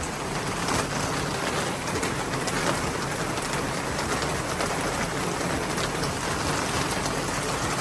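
Steady heavy rain from a hurricane falling and splashing on the ground.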